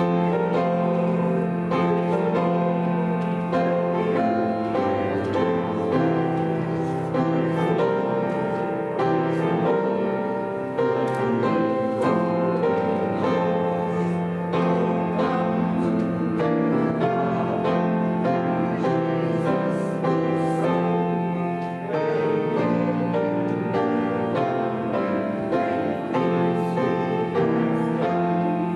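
Piano playing hymn music in full chords, with held bass notes under changing harmonies.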